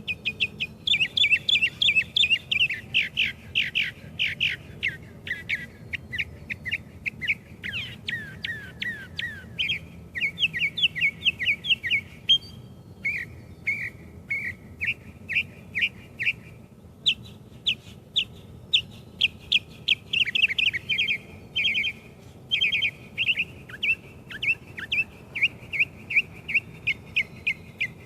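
A songbird singing a long, varied song: rapid runs of quick sweeping chirps, several a second, with the phrase changing every few seconds and only short pauses.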